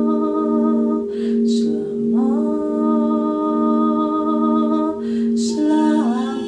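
Crystal singing bowls ringing with steady, slowly pulsing tones under a woman's voice singing long held vowel notes. The voice breaks for a breath about a second and a half in and again about five and a half seconds in.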